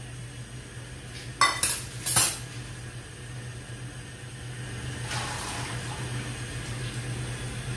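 Two sharp clinks of metal kitchenware, about a second and a half and two seconds in. Under them is the steady low noise of a steel pot of water heating on a lit gas burner, just coming up to the boil, which grows a little fuller near the end.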